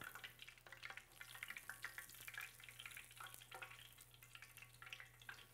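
Faint crackling and sizzling of battered coconut shrimp deep-frying in hot oil in a cast iron pot.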